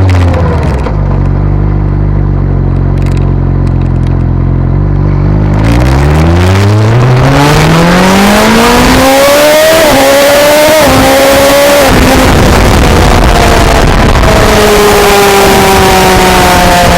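Suzuki GSX-S1000's inline-four engine through an SC-Project aftermarket exhaust, heard close to the exhaust while riding. The engine settles to a low, steady note, then from about a third of the way in revs up hard with brief dips at the gear changes, before easing into a steady cruise. Heavy wind noise runs over it.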